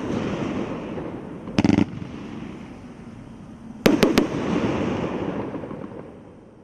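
A 500-gram consumer fireworks cake firing: a continuous hiss of bursting shells, a quick rattle of crackling pops a little under two seconds in, and three sharp bangs in fast succession about four seconds in. The hiss then fades out as the cake finishes.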